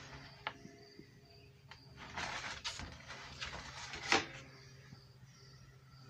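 Steel drawer of a metal typewriter desk sliding along its runners for about two seconds, then shutting with a sharp metal clunk about four seconds in.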